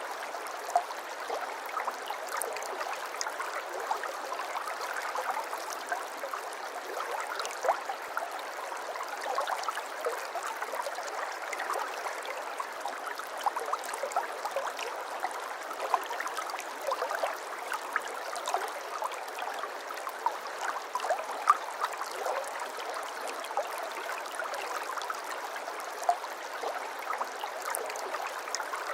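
Shallow stream or small water flow trickling and gurgling, with many small bright splashes and bubbles on a steady bed of water noise.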